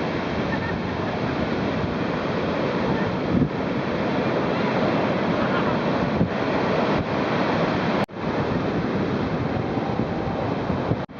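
Ocean surf rushing and breaking, with wind buffeting the microphone. The sound drops out for an instant about eight seconds in.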